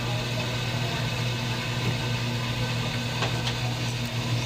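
Air-conditioner unit running with a steady low hum.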